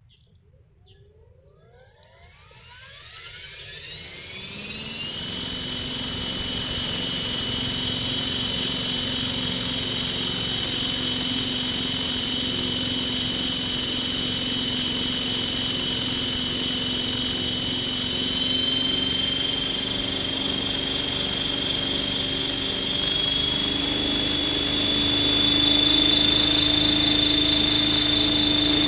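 Electric 500-size RC scale UH-1H helicopter spooling up on the ground: the motor and drivetrain whine rises in pitch over a few seconds, then holds as a steady high whine with rotor noise, stepping up slightly twice later on. It is being run up to test a newly replaced main shaft bearing.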